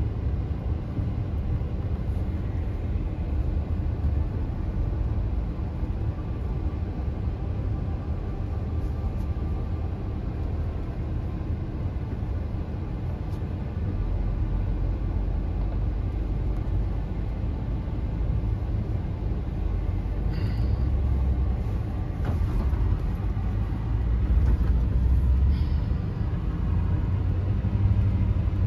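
Road noise inside a moving car's cabin: a steady low rumble of engine and tyres, which grows heavier about halfway through.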